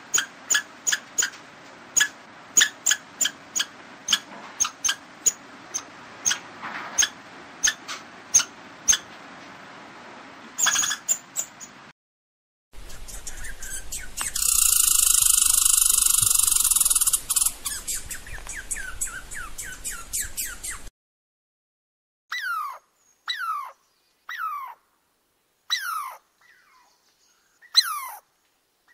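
A string of animal calls in separate edited sections. First come sharp chirps about twice a second over a faint background for roughly twelve seconds. Then a loud hissing buzz lasts several seconds, and near the end come falling whistled calls about one a second.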